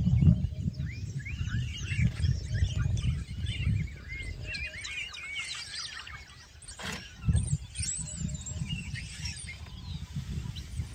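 A chorus of bird calls, many quick chirps and squeals overlapping, over an uneven low rumble. A single sharp knock comes about seven seconds in.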